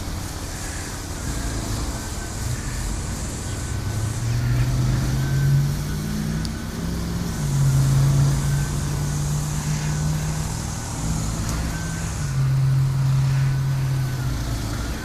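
An engine running with a low drone whose pitch steps up and down several times, under a steady hiss.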